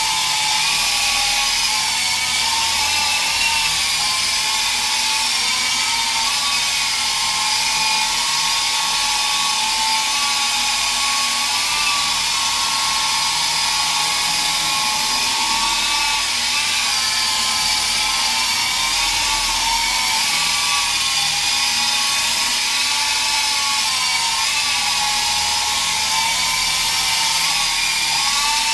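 Small electric radio-controlled helicopter hovering: a steady high-pitched motor whine over the hiss of the rotor, its pitch drifting gently up and down as the throttle is worked to hold the hover.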